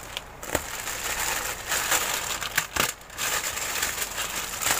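Plastic courier mailer bag crinkling as it is cut open with scissors and pulled apart, with a couple of sharp clicks.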